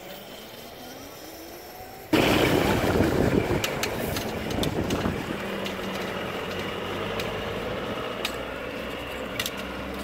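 Homemade electric kart with a 1000 W 48 V DC motor and chain drive: for about two seconds a faint rising motor whine, then a sudden jump to loud onboard riding noise, the rush of wind and road with the motor's steady hum and scattered clicks.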